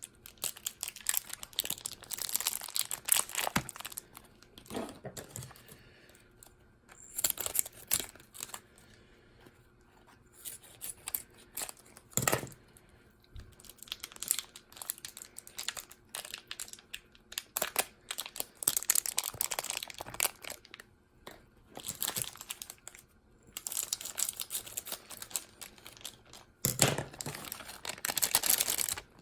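Plastic food pouches being torn open and crinkled by hand, in irregular bursts of tearing and rustling with short pauses between.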